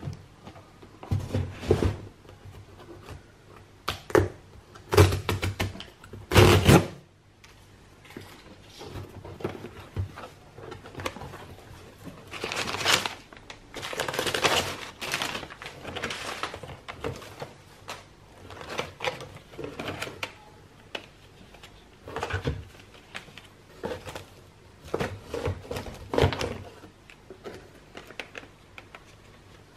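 A cardboard shipping box being handled and unpacked by hand: several sharp knocks and scrapes of the box in the first seconds, then a longer stretch of kraft packing paper crinkling as it is pulled out, followed by lighter rustles and taps of plastic-packaged items.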